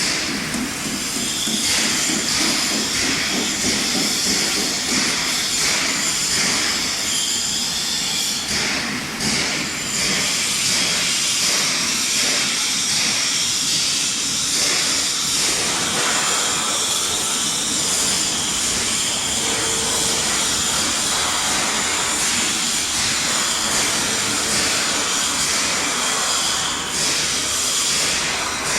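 CNC metal spinning machine running: a steady hiss with faint high whining tones, easing briefly about nine seconds in.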